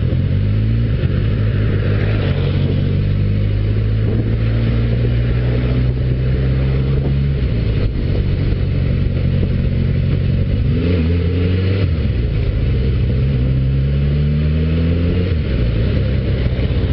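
Yamaha motorcycle engine heard from the bike while riding on a wet road. It runs steadily at first, then from about eleven seconds in the revs climb as it accelerates, dropping back once before settling. Wind and wet road noise sit under it throughout.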